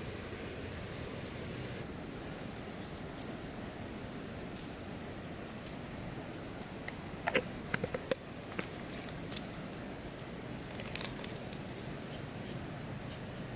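A small spoon clinking and tapping against a glass jar and a ceramic bowl as salt is scooped out, a quick cluster of sharp clinks a little past the middle and a few single taps after, over a steady outdoor hiss and a thin high tone.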